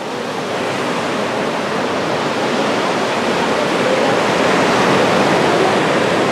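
Ocean surf washing and foaming inside a rocky sea cave: a steady rush of water that swells gradually.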